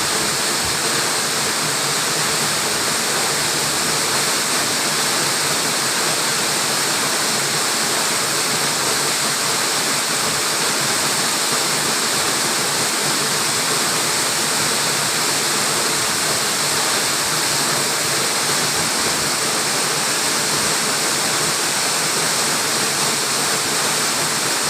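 Waterfall on a mountain stream, its water rushing and splashing in a steady, unbroken noise.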